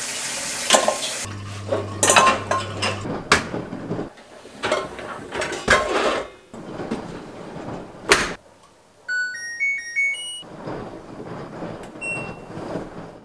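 Plates, pots and wire racks clattering and knocking as a dishwasher is loaded and its rack pushed in. Then an LG dishwasher's power-on chime plays as a short rising run of beeps, followed by a single button beep near the end.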